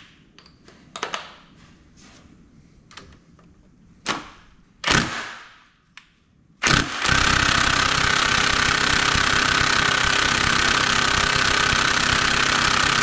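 Half-inch impact wrench hammering steadily on a diesel cylinder head bolt for about six seconds, starting about seven seconds in, without breaking the bolt loose. A few metal clanks come before it as the socket is set on the bolt.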